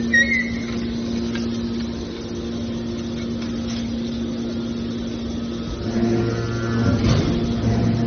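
Aluminum can baler machine running with a steady hum. About six seconds in a deeper hum joins and the sound grows louder.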